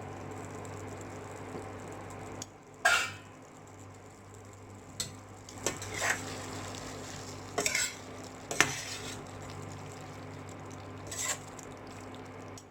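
Chicken potato gravy simmering in a pan, with a spoon stirring and scraping against the pan in about seven short strokes over a steady low hum.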